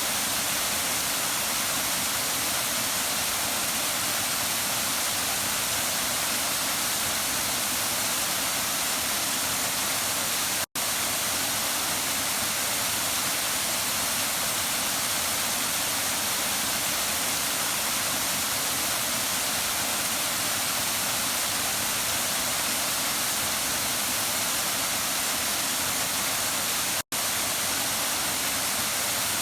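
Waterfall: a steady, even rush of falling water, broken twice by a momentary cut to silence, about 11 and 27 seconds in.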